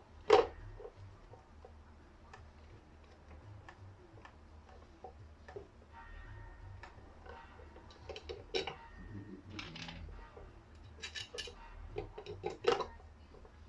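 Scattered clicks, taps and clatters of small parts and tools being handled, irregular rather than rhythmic. The loudest is a sharp knock just after the start, with bunched clicks toward the end, over a steady low hum.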